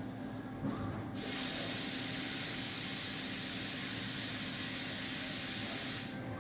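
DMG DMF 300 Linear vertical machining centre spraying: a steady hiss starts about a second in and cuts off near the end, over the machine's low steady hum.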